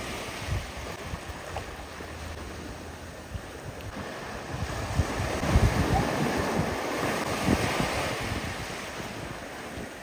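Sea surf washing in shallow water, with wind rumbling on the microphone. The water noise grows louder in the middle, where people are splashing water at each other.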